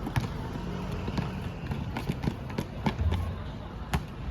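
A ball bouncing and players' footfalls on a gym floor: scattered sharp knocks and thuds, with a heavier thud about three seconds in and a sharp smack near the end, over faint distant voices.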